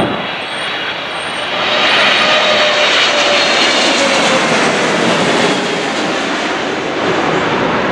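Jet engines of a Boeing 777-300ER, GE90-115Bs, passing close on landing approach: a loud rush with a high whine that swells about two seconds in and eases off after about five seconds, with a faint tone sliding down in pitch as it goes by.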